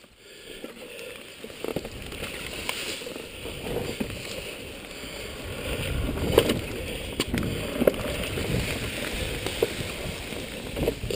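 Sherco enduro motorcycle riding over leaf-covered forest ground, a low rumble that builds through the first half, with a few sharp knocks from the bike over bumps, the loudest about six seconds in.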